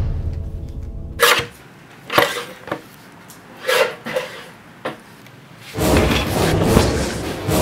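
Dramatic music with deep drum hits cuts away about a second in, leaving a quiet stretch with a handful of sharp knocks and clunks a second or so apart; loud drum-heavy music comes back in near the end.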